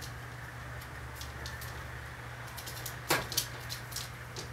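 Bamboo blind slats clicking and rattling as a kitten paws and claws at it, with a sharper crack a little after three seconds and a second one just after. A steady low hum runs underneath.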